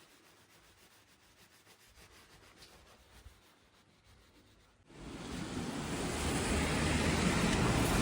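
Faint quiet for about five seconds, then a loud, steady rushing noise cuts in abruptly and continues.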